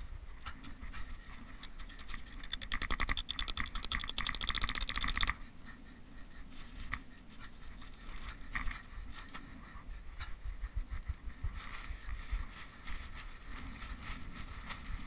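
Lavvu tent canvas being handled and staked into snow: rustling and scraping, with a dense run of rapid scraping a few seconds in, then scattered small knocks and rustles, over a steady wind rumble on the microphone.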